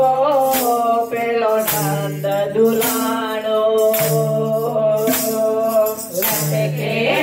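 Women singing a Gujarati devotional song together into microphones, with wooden kartal clappers striking and jingling on the beat about twice a second and a low sustained accompaniment underneath.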